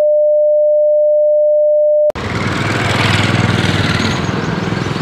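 A steady single-tone censor beep, masking a phone number being read out; it cuts off abruptly about two seconds in, giving way to street traffic noise.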